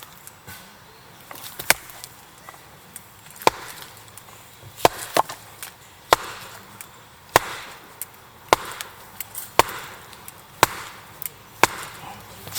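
Firewood being split by hand: a series of about ten sharp chopping strikes of a blade into wood, roughly one a second.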